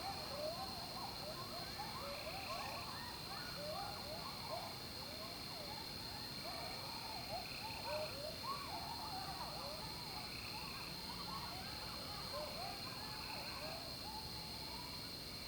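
Night chorus of many frogs giving short, rising calls that overlap continuously. Insects keep up a steady high-pitched drone underneath.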